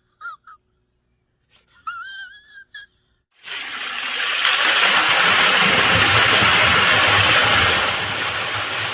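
Near silence with a few short warbling tones, then, about three and a half seconds in, rushing water from a waterfall cuts in suddenly and swells to a loud, steady roar.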